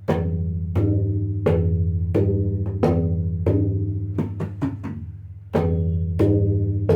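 Bayan, the tabla's bass drum, struck at a steady pace of about one stroke every 0.7 seconds, each stroke leaving a long low ringing tone. A quick run of lighter strokes comes about four to five seconds in.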